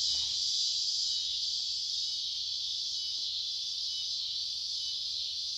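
A steady, high-pitched insect chorus, with a faint low hum underneath.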